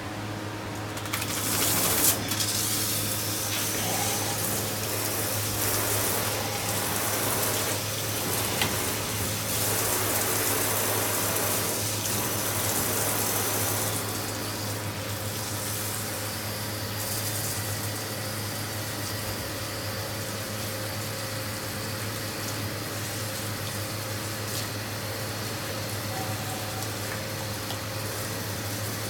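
Water spraying from a handheld shower sprayer onto a lathered dog's coat and the stainless steel tub, rinsing off shampoo. The rush of water starts about a second in, is louder for the first dozen seconds or so, then runs on steadily a little softer.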